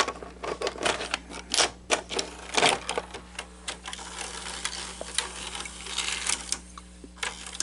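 Irregular rapid clicking and clattering of small plastic and metal parts being handled while working inside a Betamax VCR, over a faint steady hum.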